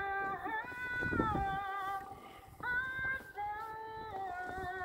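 A woman's voice singing a slow melody in long, steady held notes that step from one pitch to the next.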